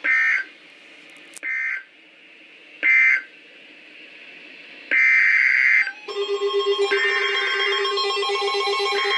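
Emergency Alert System digital data bursts: three short raspy two-tone squawks about a second and a half apart, marking the end of the broadcast warning, then a longer squawk about five seconds in. About six seconds in, a pulsing electronic alert tone with several steady pitches starts and keeps going.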